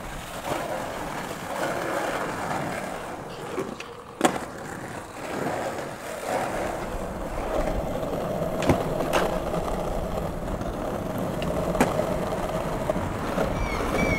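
Skateboard wheels rolling over pavement, with a few sharp clacks from the board. A few short bird calls come near the end.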